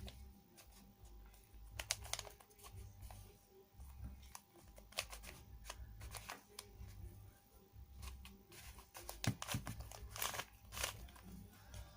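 Plastic puzzle cube being twisted by hand: irregular small clicks and rattles as its layers turn.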